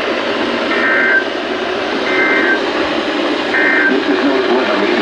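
NOAA Weather Radio receiver hissing with static, with three short warbling data bursts of EAS/SAME end-of-message tones about a second and a half apart, marking the end of the alert.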